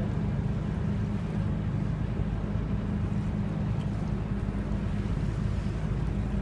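Small harbour passenger ferry underway, its engine running with a steady low drone, over the rush of water along the hull and wind on the microphone.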